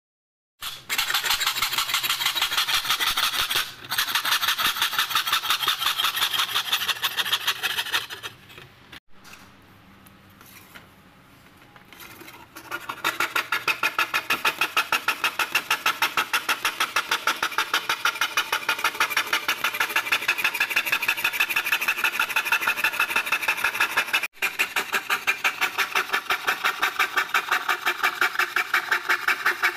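Hand piercing saw (fret saw) cutting through thin brass sheet, in quick, even back-and-forth rasping strokes, with a pause of a few seconds about a third of the way in.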